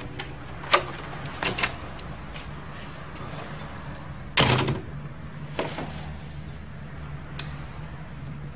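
A wooden room door being opened, with a few latch clicks, then shut with a knock about four and a half seconds in, followed by a couple of softer knocks, over a low steady hum.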